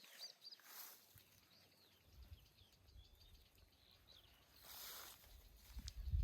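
Birds chirping faintly, many short scattered calls, over a soft hiss that swells twice, with a low rumble coming up near the end.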